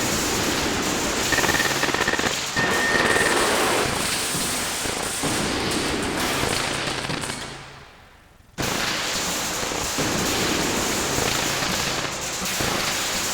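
Fireworks crackling and popping in a dense, rapid barrage. The crackle fades almost away about two-thirds of the way through, then cuts back in suddenly at full strength.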